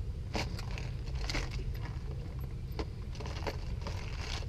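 Small clicks and rattles of fishing tackle being handled in a plastic tackle box, several irregular knocks, over a steady low rumble.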